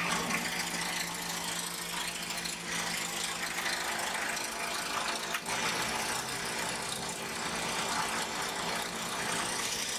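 Car engine idling steadily, with a single sharp click about five and a half seconds in.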